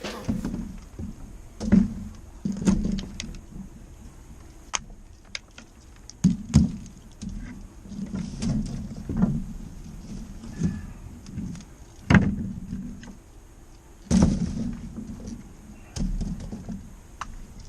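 Irregular knocks, thuds and sharp clicks, scattered a second or two apart with a few louder ones, over a faint steady hiss.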